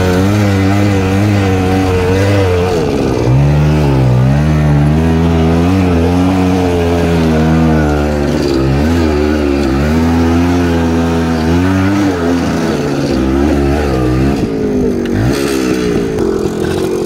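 Old Suzuki motorcycle engine pulling hard in first gear up a steep loose-dirt climb, its pitch rising and falling as the throttle is worked. Near the end the engine note eases and turns uneven.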